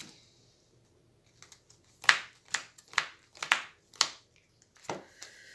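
Hero Realms playing cards being handled on a table: after a near-silent start, about six sharp card snaps roughly half a second apart, as cards are taken from the deck into the hand, and one more a little later.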